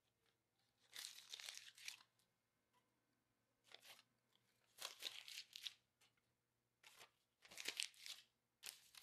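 Paper sticky notes being torn and crumpled by hand, in about five short rustling bursts each under a second long, with near quiet between them.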